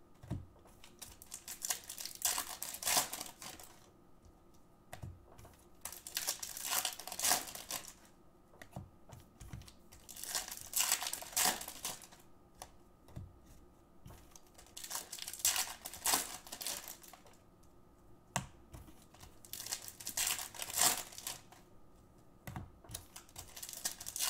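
Foil trading-card packs being torn open and crinkled, and the cards inside handled and thumbed through with rapid clicking, in bursts a few seconds long with short pauses between.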